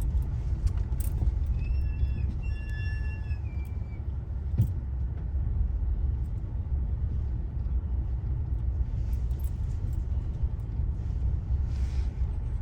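Steady low rumble of a car's engine and tyres on the road, heard from inside the cabin while driving. A brief high tone sounds about two seconds in, and a single knock about four and a half seconds in.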